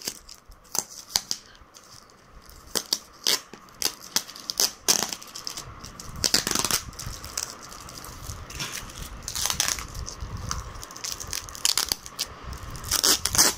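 Brown packing tape being peeled and torn off a clear plastic box, with the plastic and bubble wrap crinkling and crackling irregularly, and a few longer rasping tears.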